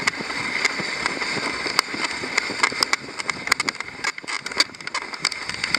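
Mushing rig gliding over a packed snow trail behind a two-dog team: a steady hiss of travel over the snow, broken by many irregular clicks and knocks.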